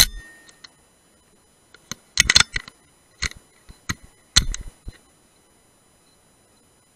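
A single shot from a Brocock Sniper HR .177 air rifle right at the start: a sharp crack with a low thump and a short tail. It is followed by clusters of sharp clicks and knocks between about two and five seconds in.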